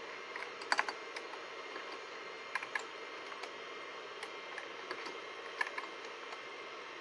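Keystrokes on a computer keyboard: about a dozen short, irregularly spaced key clicks, a double tap about a second in, over a steady background hum.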